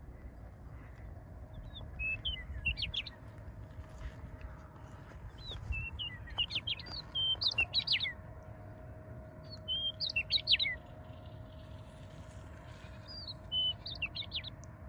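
A songbird singing a short whistled phrase four times, roughly every four seconds, each phrase ending in quick sliding notes.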